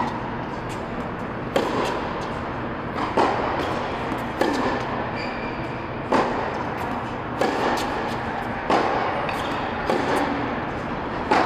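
Tennis rally: a ball struck by rackets and bouncing on a hard court, a sharp pop about every second and a half, each echoing in a large indoor hall.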